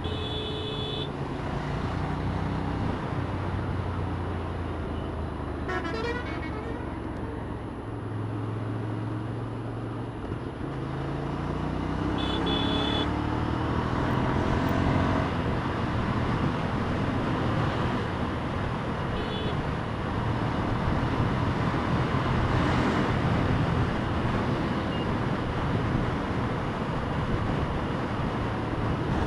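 Ducati Scrambler's air-cooled L-twin engine running at speed under wind and road noise, its note rising as it accelerates about ten seconds in. Short vehicle-horn toots sound near the start, around twelve seconds and again a few seconds later.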